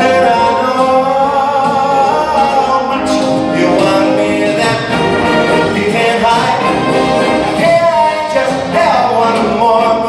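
A male singer singing into a handheld microphone over loud instrumental backing music.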